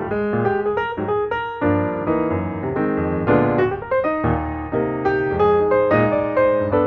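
Background piano music: a steady run of quick struck notes and chords.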